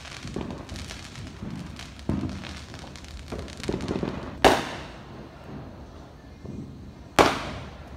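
Aerial fireworks going off: a patter of crackling and a few dull thuds, then two sharp, loud bangs, about four and a half and seven seconds in, each echoing away.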